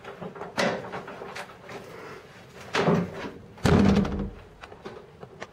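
A door being knocked and banged shut: a few sharp clunks, the loudest and heaviest about four seconds in.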